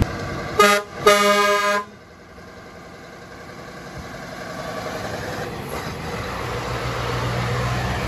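A truck's air horn sounds twice, a short toot and then a longer blast. After it the truck's diesel engine is heard as a low rumble that grows louder as the truck comes closer.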